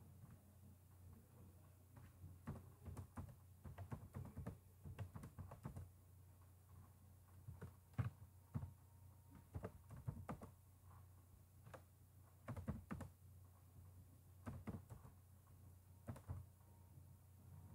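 Computer keyboard keys tapped in short clusters of faint clicks with pauses between them, typing in numbers, over a steady low hum.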